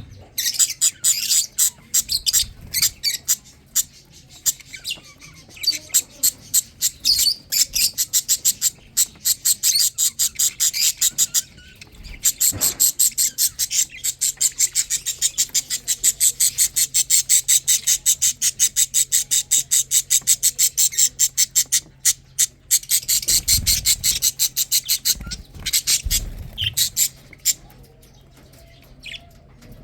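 Lovebird chicks chirping in a fast run of short, high calls, several a second, with a couple of brief pauses, dying away near the end; the chicks are feeding.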